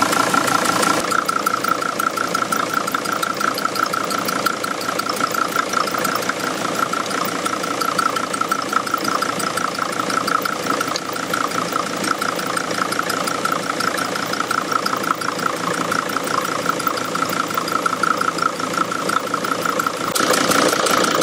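Mercedes T1N Sprinter's five-cylinder common-rail diesel engine idling warm, a steady rapid clatter. Its cylinder 3 injector seal is leaking, the fault known as black death.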